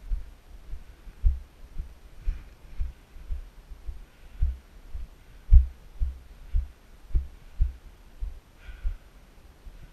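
Muffled low thuds, about two a second, carried straight into a mounted GoPro as it jolts with its wearer's movement over the rough shoreline ground; they stop about nine seconds in.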